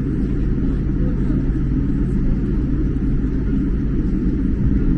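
Steady low rumble inside a jet airliner's cabin as it taxis, the engines running at low power while it rolls along the taxiway.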